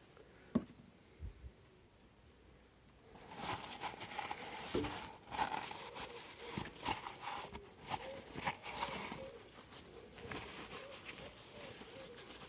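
Hands working over engine parts: a sharp click about half a second in, then several seconds of irregular rustling, scraping and light knocks that fade towards the end.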